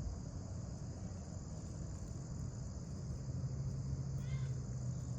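Steady high-pitched chorus of calling insects over a low background rumble, with a low steady hum coming in about three seconds in.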